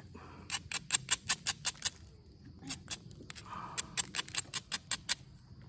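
Onondaga chert being worked at the edge of a point in progress: two runs of quick, sharp stone-on-stone clicks, about six a second, with a couple of single clicks between them.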